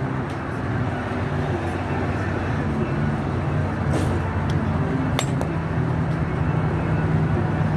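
Softball batting cage: a steady low mechanical hum, with sharp cracks of a bat hitting a softball and of balls striking the cage about four seconds in and again a second later.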